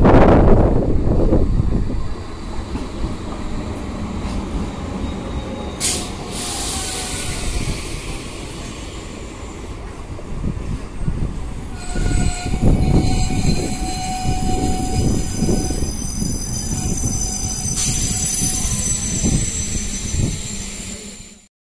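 Passenger multiple-unit train running through a station at speed: a heavy rumble of coaches with wheels clattering rhythmically over rail joints. High, thin wheel squeal comes in over the second half. The sound cuts off abruptly just before the end.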